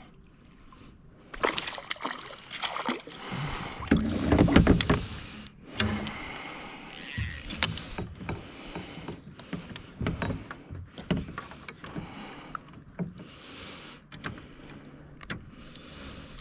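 Irregular knocks, clicks and handling noise in and around a fishing kayak as a hooked bass is fought and brought to the boat, loudest about four to five seconds in, with a brief high squeak about seven seconds in.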